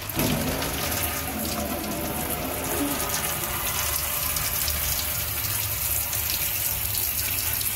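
Water running steadily from a tap and hose, splashing into a stainless steel sink.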